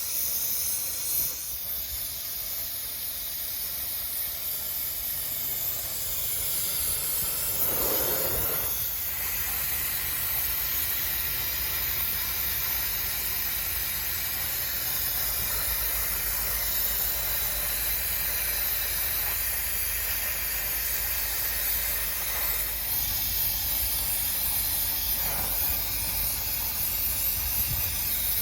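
Gas-welding torch flame hissing steadily while a crankcase hole is welded shut, with a brief change in the sound about eight seconds in.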